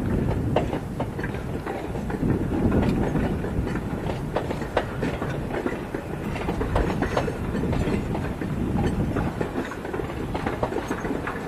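Narrow-gauge railway passenger cars rolling past on the track: a steady low rumble of wheels and running gear with irregular clicks and knocks from the wheels over rail joints.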